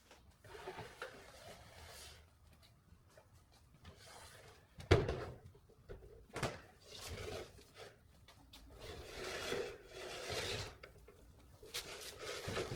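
Wooden pieces being handled: irregular rubbing and sliding with a few knocks, the sharpest about five seconds in and another a second and a half later.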